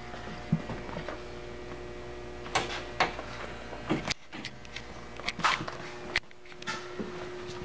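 Scattered short knocks, taps and scuffles of small puppies tumbling over each other and their toys, over a steady machine-like hum with one constant tone.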